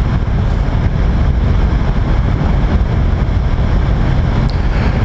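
A sport motorcycle riding at steady speed on a wet road: a loud, steady rush of wind on the camera microphone mixed with engine and road noise.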